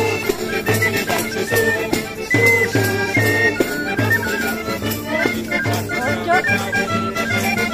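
Sicilian folk dance music played live on accordion with guitar: a lively accordion melody over a steady beat.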